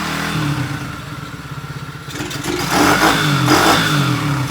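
Tao Tao DB14's 110 cc four-stroke single-cylinder engine running just after a cold start, its pitch wavering unevenly, then getting louder and busier a little over halfway through.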